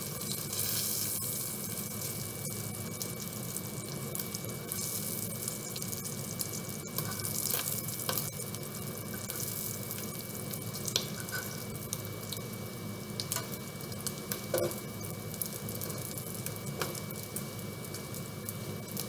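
Bacon strips sizzling steadily in a frying pan, with occasional light clicks of a metal fork turning them against the pan.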